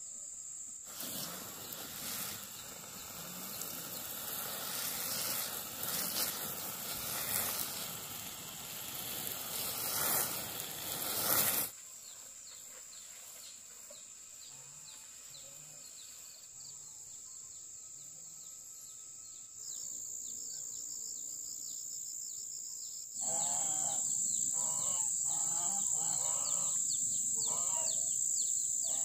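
Rural outdoor ambience. A loud rushing noise for roughly the first twelve seconds cuts off suddenly, leaving a steady high-pitched insect drone with chirping bird calls, which grow louder with repeated calls near the end.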